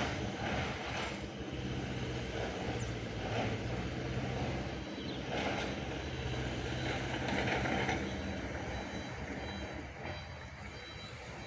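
Excavator's diesel engine running steadily, with swells of working noise every couple of seconds. A faint high beeping repeats near the end.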